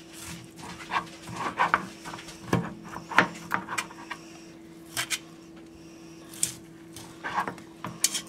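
A chef's knife cutting through tender baby back ribs and knocking on a plastic cutting board, with metal tongs clicking as the ribs are held and moved, in irregular knocks about ten times. A steady low hum runs underneath.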